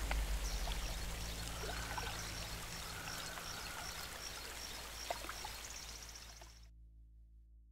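Creek water running over rocks, a steady rushing hiss with faint high chirps above it, gradually fading and then cutting off near the end.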